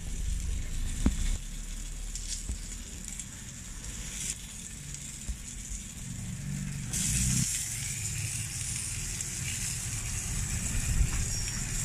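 Gorditas sizzling on a hot flat griddle: a steady high hiss that gets brighter about seven seconds in. A low rumble runs underneath, with a few light clicks.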